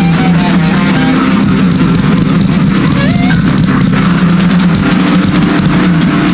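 Live rock band playing loud: electric guitars over a drum kit with rapid, steady drum and cymbal hits.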